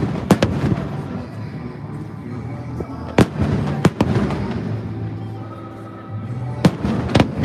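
Fireworks going off: about five sharp bangs at irregular intervals of a second or more, with a rumbling crackle between them and steady low tones underneath.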